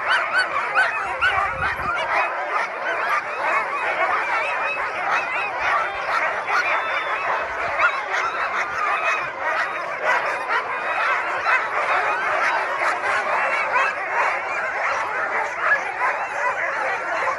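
A large pack of harnessed Alaskan husky sled dogs barking and yelping all at once in a continuous, overlapping din, the excited clamour of teams eager to run at a race start.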